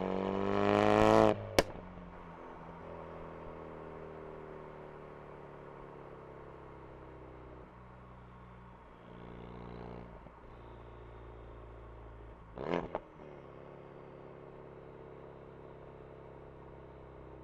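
Ford Focus RS exhaust under hard acceleration, the engine note rising steeply until the throttle shuts abruptly about a second in, followed by a single sharp crack. The car then cruises with a steady, slowly falling engine note, broken by one short loud burst about three-quarters of the way through.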